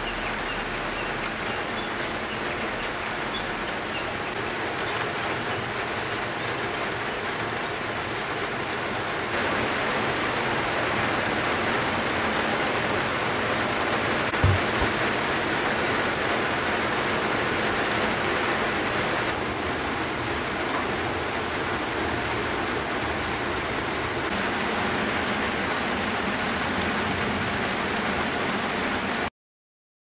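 Steady rain falling, an even hiss, with one low thump about halfway through; it cuts off suddenly near the end.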